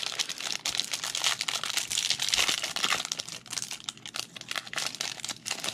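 Thin plastic sleeve of a trading-card pack crinkling and crackling without a break as hands work the cards out of it.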